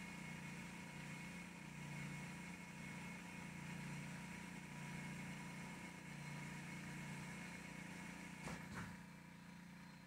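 Faint steady low hum of the Mercedes SLK350 (R172) rear electric parking-brake motors winding the caliper pistons back to the pad-fitting position, heard from the cabin. Two soft clicks come about a second before the end, and the hum drops as the brakes reach position.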